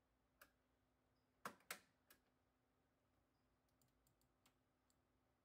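Instrument switches being clicked: a few sharp clicks, two of them close together about a second and a half in, then several fainter ticks later, over a faint steady hum.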